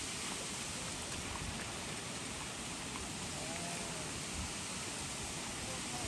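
Waterfall rushing: a steady, even roar of falling water. A faint short tone rises and falls about halfway through.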